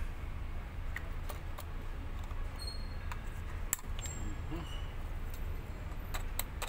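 Scattered small metal clicks and ticks as pliers work on an air compressor piston, a few at a time, with a cluster near the end, over a steady low rumble.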